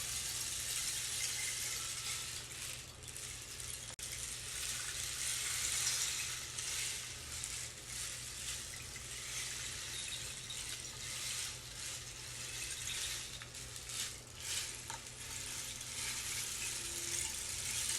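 Rainstick: a continuous pattering hiss of small pellets cascading inside the tube, swelling and easing several times.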